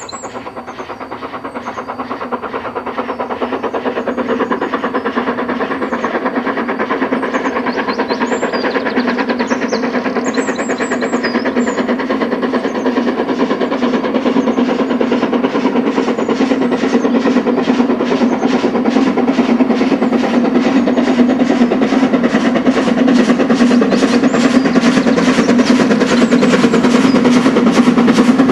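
LMS Princess Coronation Class Pacific No. 6233 Duchess of Sutherland, a four-cylinder steam locomotive, working hard up a 1 in 150 gradient. Its chimney gives a rapid, even beat of exhaust that grows steadily louder as it approaches.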